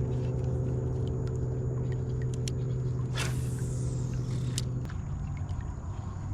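A motor running with a steady low hum and rumble, which drops away about five seconds in. A brief whoosh comes a little after three seconds.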